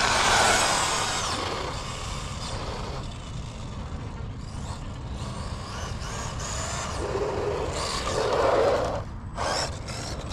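Arrma Fury 2WD short course RC truck on a top-speed run with a 3S LiPo battery: its electric motor and tyres are loud just after the start and fade over a few seconds. The sound swells again from about seven to nine seconds in, then drops away suddenly.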